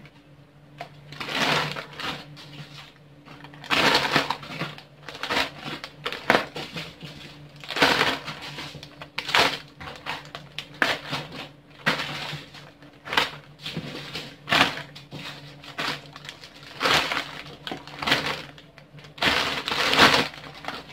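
Clear plastic bags rustling and crinkling as they are handled, in irregular loud rustles every second or two.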